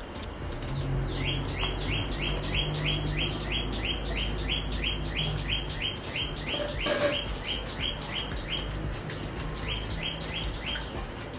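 A bird calling: a rapid, even series of short chirps, each dropping in pitch, about three a second, breaking off briefly near the end before a few more. A low steady hum runs underneath, with a single click about seven seconds in.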